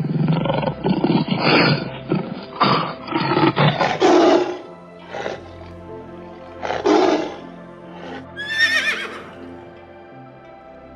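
A tiger roaring several times in rough, loud calls over the first seven seconds, then a horse whinnying once, about eight seconds in, in a high wavering call. Background music plays throughout.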